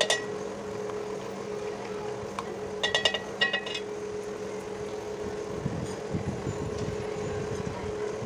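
A utensil clinking against a metal cooking pot: one clink at the start, then a quick run of ringing clinks around three seconds in. Softer stirring and scraping through chicken curry follows in the second half, over a steady low hum.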